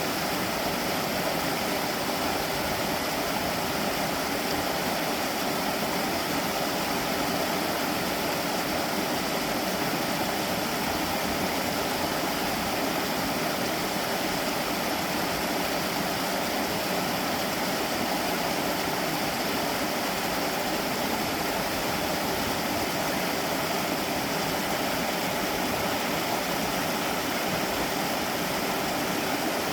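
A mountain valley stream running: a steady, unbroken rush of flowing water.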